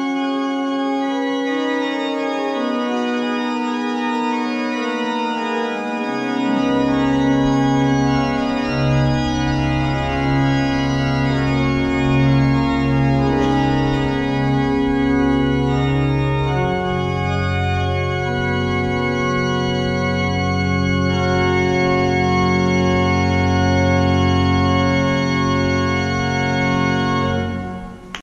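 Pipe organ playing slow, sustained full chords. Deep pedal bass notes come in about six seconds in and move to a new bass note about two-thirds of the way through, and the playing breaks off abruptly at the very end.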